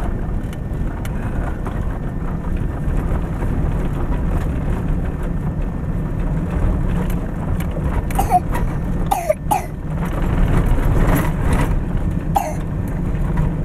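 Vehicle driving on a dirt road, heard from inside the cab: a steady low engine and road rumble, with a few brief sharp sounds about eight to nine and a half seconds in.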